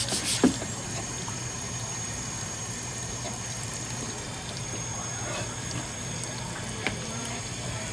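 Steady running water, as from a kitchen tap into a sink, with a sharp knock about half a second in and a lighter one near the end.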